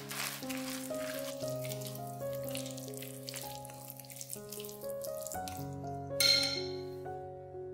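A spoon stirring wet grated-vegetable batter in a glass bowl: repeated squelching, scraping strokes over the first few seconds, then a single bright clink about six seconds in. Piano music plays throughout.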